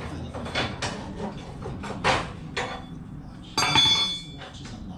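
Hand tools knocking and clinking against the steel under a pickup's front bumper: a few sharp knocks, then a louder metallic clang that rings briefly about three and a half seconds in.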